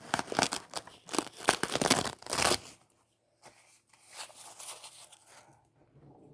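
Rustling, crinkling handling noise in dense crackles for about two and a half seconds, then fainter, sparser ones.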